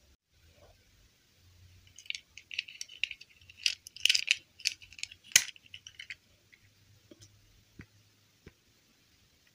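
A small plastic doll and its soft plastic dress handled between the fingers: a flurry of light clicks and rustles as the dress is pushed on over the doll, busiest in the middle, then a few scattered clicks.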